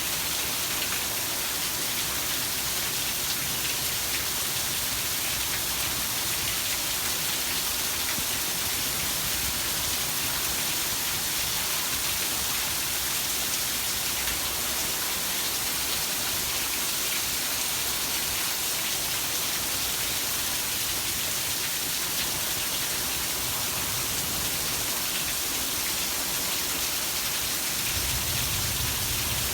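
Heavy rain falling in a steady, even hiss, with a low rumble coming up near the end.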